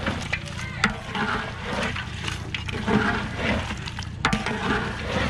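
Meat bubbling and sizzling in a large aluminium pot over a wood fire while a long metal ladle stirs it, scraping through the contents. A few sharp knocks of the ladle against the pot ring out.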